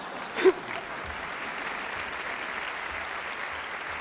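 Theatre audience applauding steadily, with one short loud shout about half a second in.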